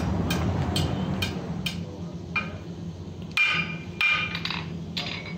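Hand hammer striking a red-hot metal bar on an anvil, about two blows a second, while the neck of a forged heron is shaped. After a short pause midway, a few louder blows set the anvil ringing.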